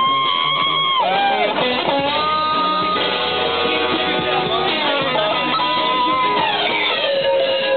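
Live rock band playing outdoors, led by an electric guitar with long held notes that bend up and down, over drums.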